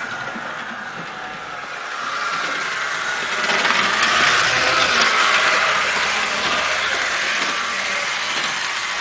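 Mantua Tyco HO-scale Santa Fe diesel model locomotive running along model railroad track, its motor and wheels making a steady mechanical whir. The sound grows louder as the locomotive passes close by about four seconds in, then slowly fades.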